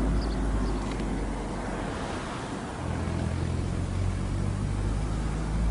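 Rumbling vehicle noise, with a low hum that steadies and grows a little louder about three seconds in.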